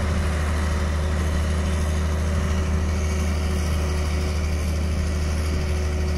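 Diesel engine of a heavy earthmoving machine running steadily: a low, even hum with a constant tone and no revving.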